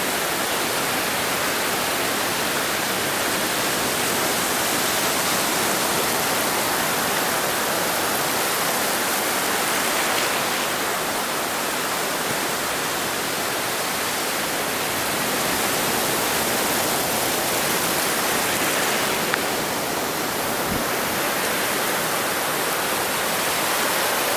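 Steady rush of surf washing onto a sandy beach.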